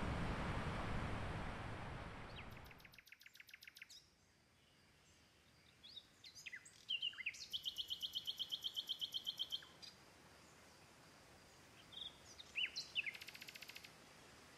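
A steady wash of sea and wind noise fades out about three seconds in. Birds then chirp and sing, with two rapid pulsed trills of about eight notes a second.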